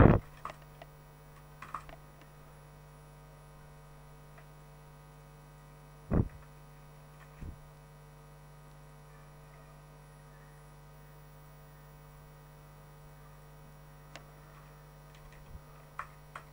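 Steady electrical hum from the recording setup, with scattered keyboard and mouse clicks at a computer. There is a single louder thump about six seconds in, and a quick run of clicks near the end.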